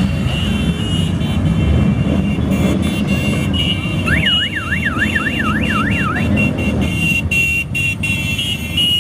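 Motorcycle engines rumbling as a column of bikes rides past. About four seconds in, a police siren sweeps rapidly up and down for about two seconds, and a high tone comes and goes above the engines.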